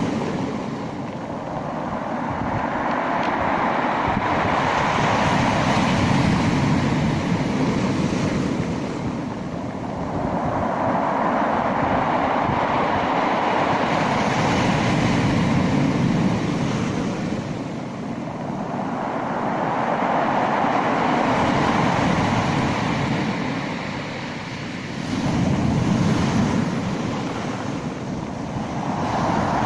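Sea waves, a continuous rushing surf that swells and eases in slow surges every six to eight seconds.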